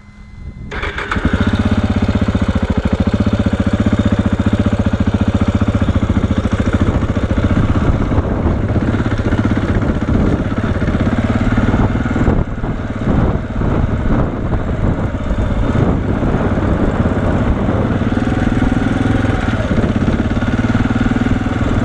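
KTM 690 Enduro's single-cylinder four-stroke engine comes up about a second in and then runs steadily as the bike rides along a dirt track.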